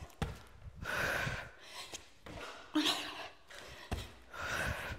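A woman breathing hard through a fast bodyweight exercise: three heavy, gasping breaths about a second and a half apart, with a few dull thuds of feet and hands landing on an exercise mat.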